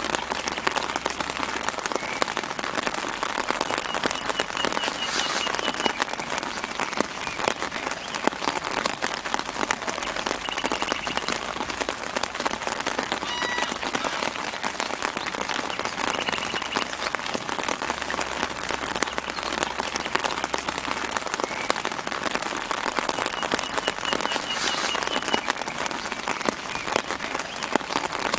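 Light rain pattering steadily on leaves and ground, a dense hiss of many small drops. A bird gives a short high trill in the background every several seconds.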